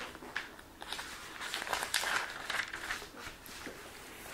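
Paper pages rustling and crinkling in short irregular strokes, as the pages of a Bible are leafed through to find a passage.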